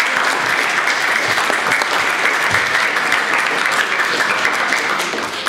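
Audience applauding, a dense steady clapping that begins to die away near the end.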